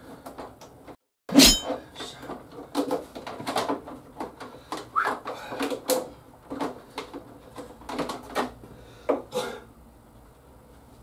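Handling clatter of plastic and metal: a sharp click about a second and a half in, then a run of irregular light clicks, taps and knocks as the windscreen fasteners and trim of a motorcycle are worked loose by hand.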